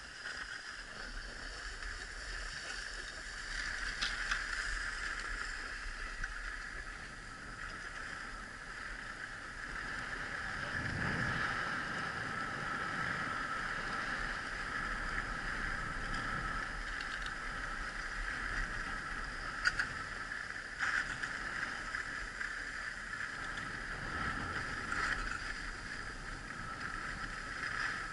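Skis sliding and scraping over groomed snow on a downhill run, heard from a helmet-mounted camera, with a few short clicks from bumps in the snow and a brief low rumble of wind about a third of the way in.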